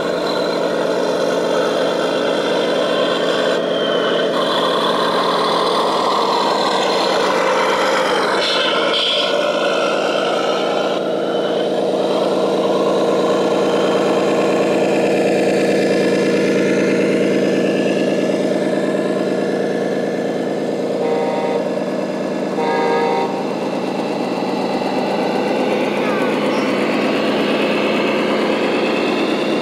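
Steady simulated diesel engine running from the electronic sound modules of radio-controlled scale trucks, with a few short beeps about two-thirds of the way through.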